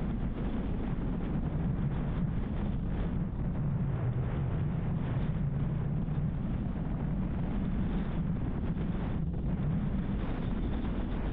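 Steady low rumble of a car driving along an open road: tyre and wind noise.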